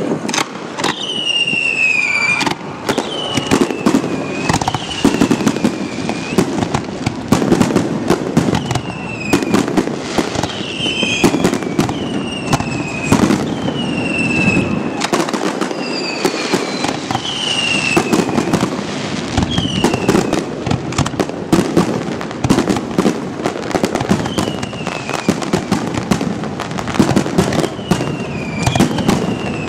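Fireworks display: a dense, continuous run of bangs and crackles. A shrill whistle falling in pitch recurs every second or two over the bangs.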